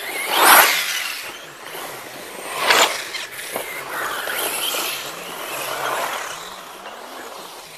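Radio-controlled buggy driving past twice at speed, about two seconds apart, with a lighter running noise between the passes.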